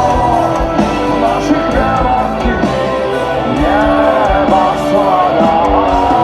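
Loud rock music in a stretch without lyrics, a melodic lead line sliding up and down over the full band.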